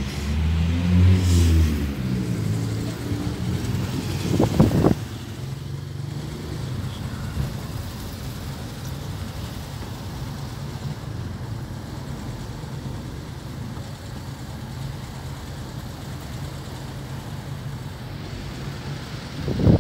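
Car engine and road noise heard from inside the cabin while driving. For the first few seconds the engine note rises and falls. About five seconds in the sound drops suddenly, leaving a steadier, quieter low rumble of the car rolling along.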